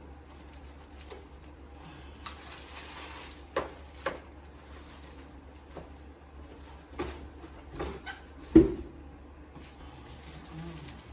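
Handling of the keyboard's packaging while unboxing: about a second of rustling a couple of seconds in, then scattered knocks and taps, the loudest about eight and a half seconds in, over a steady low hum.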